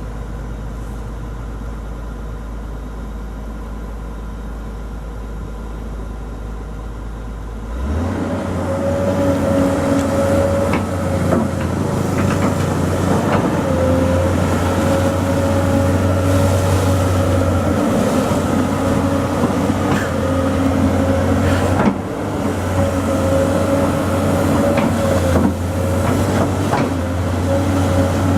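Excavator diesel engine running: a low steady hum that, about eight seconds in, steps up to a louder working note with a steady whine over it, and a few sharp knocks later on.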